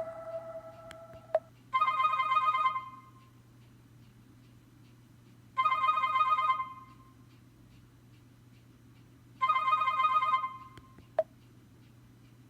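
Schok Classic flip phone playing a telephone-ring ringtone: three short warbling rings of about a second each, roughly four seconds apart.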